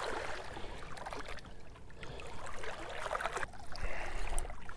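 Shallow water trickling and sloshing faintly around hands and legs, as a large snook is held in the water and revived before release.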